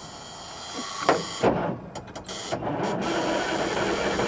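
Heavy diesel truck engine cranking over on its starter after a spray of starting fluid, not yet catching, with two loud knocks about one to one and a half seconds in and steadier, louder cranking from about three seconds on.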